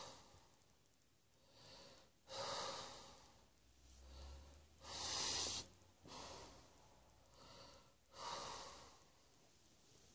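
A person breathing in and out audibly, a noisy breath about every second, with three louder breaths among softer ones.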